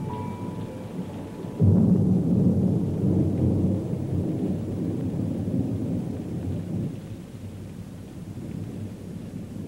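A deep rumble breaks in suddenly about a second and a half in and slowly dies away over the next five seconds or so, after a few faint sustained melody notes.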